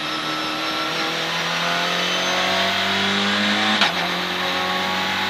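Citroën C2 R2 Max rally car's 1.6-litre four-cylinder engine accelerating hard, heard from inside the cabin. The engine note climbs steadily, then drops sharply with a click about four seconds in as the driver upshifts, and starts climbing again.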